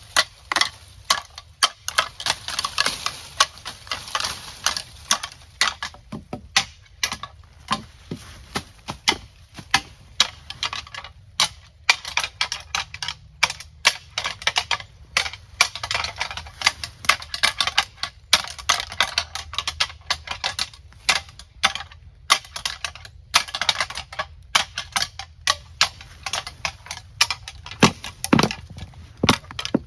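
A pair of deer antlers being rattled together, in rapid irregular clacking and grinding runs with short pauses between them, to imitate two bucks fighting and call a whitetail buck in.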